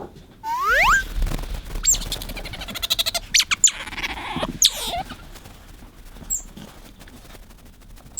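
Asian small-clawed otter squeaking and chirping for attention: two rising whistled squeaks about half a second in, then a run of high chirps with rapid clicking that dies down after about five seconds.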